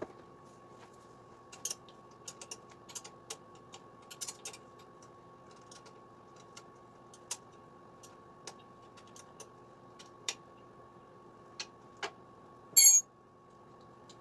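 Scattered small clicks and ticks of plastic wiring-harness connectors and wires being handled and fitted, over a faint steady hum. About a second before the end comes one much louder, short rasping burst.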